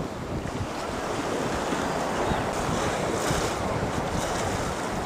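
Steady rushing wind on the microphone over a wash of sea surf, growing a little louder in the first couple of seconds, with a few brief hissy gusts.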